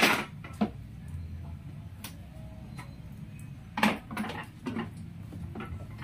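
Sharp clacks and clicks of hard motorcycle parts being handled as the old rear fender's clips are worked off: a loud clack right at the start, a smaller one just after, and a short cluster of knocks about four seconds in.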